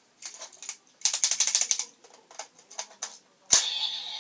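Plastic toy gun's ratcheting mechanism clicking as it is worked by hand, with a fast run of clicks about a second in. About three and a half seconds in comes one sharp, loud snap.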